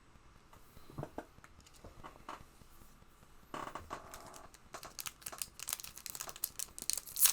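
Trading-card pack wrapper crinkling and tearing as cards are handled, with a few light clicks at first, then busier crackling from about halfway that is loudest near the end.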